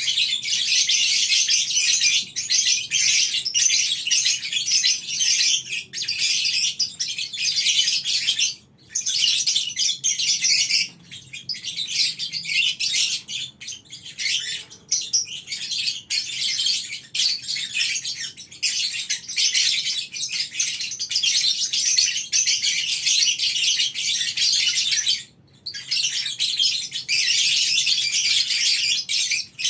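A colony of lovebirds chattering together in a dense, high-pitched twitter, the long run of chatter that keepers call 'ngekek'. It breaks off briefly twice, about nine seconds in and again about twenty-five seconds in.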